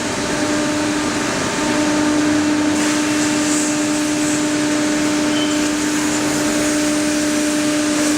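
Wood CNC router running: a steady hum from the spindle over a constant hiss, with a brief dip in the hum about a second and a half in.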